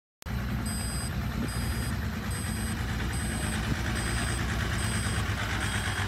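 Asphalt distributor truck's engine running with a steady low rumble, starting a moment in, while its reversing alarm beeps a little more than once a second.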